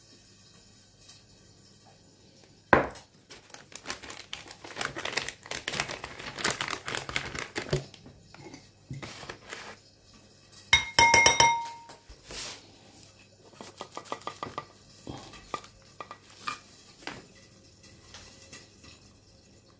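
Foil butter wrapper crinkling as it is handled, then a table knife clinking against a glass bowl with a short ring midway, followed by lighter scrapes and taps of the knife.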